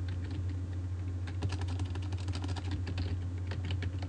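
Typing on a computer keyboard: a run of quick keystrokes, sparse at first and densest in the middle, over a steady low hum.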